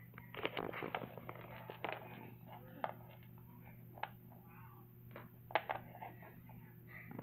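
Small plastic Littlest Pet Shop figures and building blocks being handled and set down on a wooden floor: scattered light clicks and taps, over a faint steady hum.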